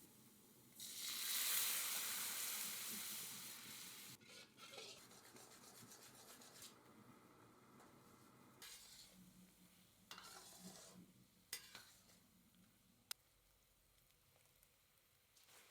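Food sizzling in a hot wok while being stirred and tossed with a metal wok spatula. A loud burst of sizzle about a second in fades over a few seconds to a quieter hiss, with a few sharp clicks of metal on the wok near the end.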